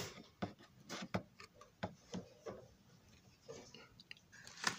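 Irregular small clicks, taps and light rubbing of objects being handled and moved about on a workbench, with a sharper knock near the end.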